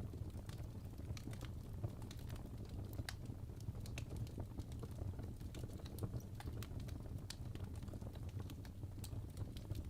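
Wood fire burning in a fireplace: a steady low rumble of flames with irregular sharp crackles and pops from the logs, several a second.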